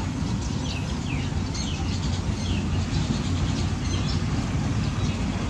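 A series of short, high, falling chirps, mostly in the first half, over a steady low rumble.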